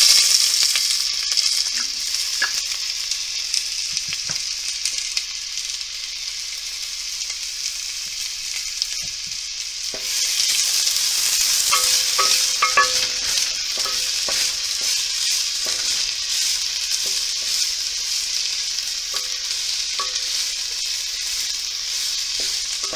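Chopped red onions sizzling in hot vegetable oil in a nonstick pot, a steady hiss. From about ten seconds in, a spatula stirs them, adding light scraping taps against the pot.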